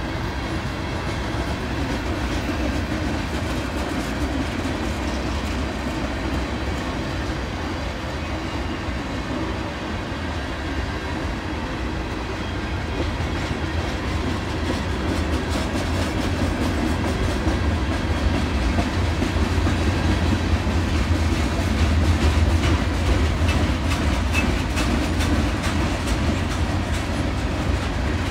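Freight train of boxcars, tank cars and covered hoppers rolling past: a steady low rumble with wheels clicking over the rails. It grows louder past the middle.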